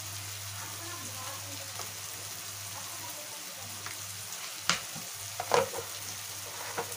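Onion-tomato masala with ground spices sizzling steadily as it fries in a metal kadai. A metal spatula stirs it, knocking sharply against the pan twice about five seconds in.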